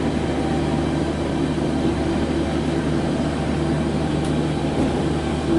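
Osaka Monorail rubber-tyred straddle-beam train running at speed, heard from inside the car: a steady drone of motors and tyres on the guideway, with a constant low hum underneath.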